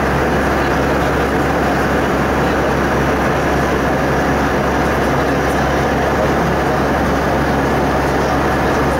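Steady cabin noise inside a passenger airliner in cruise: an even rush of engine and airflow noise over a constant low hum, unchanging throughout.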